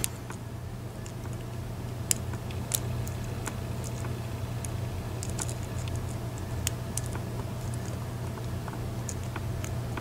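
Scattered small metallic clicks and scrapes of a lock pick and tension wrench working the pins of an old brass Yale pin-tumbler padlock, with single pins being set one at a time.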